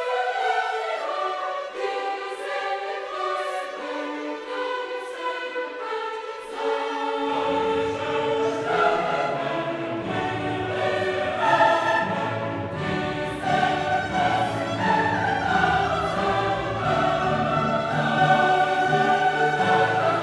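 Background music: classical choir singing with an orchestra. The low voices and bass come in about seven seconds in.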